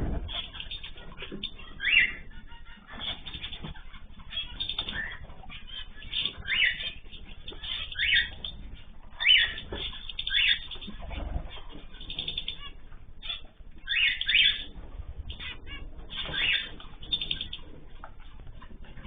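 Cage birds chirping and calling over and over, with many short clicks and rustles among the calls, such as wings fluttering in an aviary.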